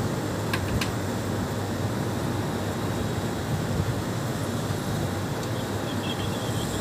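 Steady low rumbling outdoor background noise, with two light clicks about half a second in.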